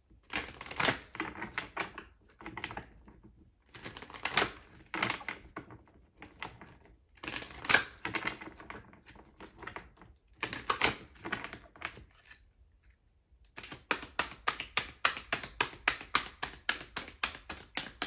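A deck of cards being shuffled by hand, the cards slapping and flicking against one another. It comes in several short bursts, then near the end a quick steady run of about six flicks a second.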